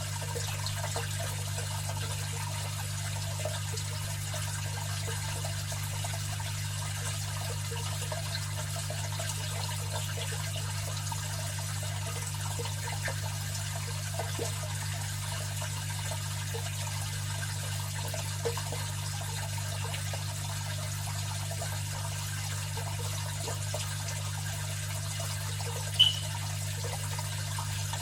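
Aquarium filter running: a steady low hum from its motor under continuous trickling, splashing water. A brief high chirp near the end is the loudest moment.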